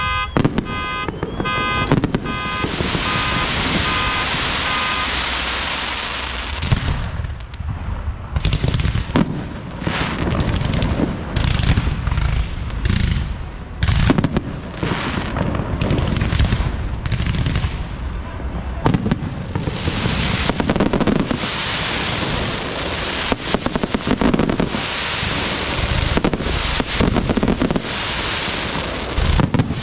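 Aerial fireworks display: a continuous barrage of shell bursts and dense crackling, with many sharp reports in quick succession. For the first few seconds a pulsing electronic alarm tone sounds over it.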